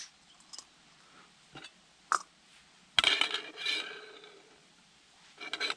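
A few small metallic clicks and a sharp clink, then, about three seconds in, a loud clank with a short metallic ring as a collapsible camping pot is set down on the metal pot supports of a small canister gas burner. A second rattling clatter follows near the end as the pot is shifted on the supports.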